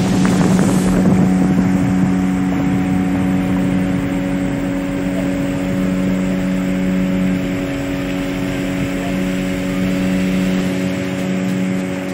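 Outboard motor of a fiberglass river boat running at a steady cruising speed, a loud even drone with a steady hum, with some wind on the microphone.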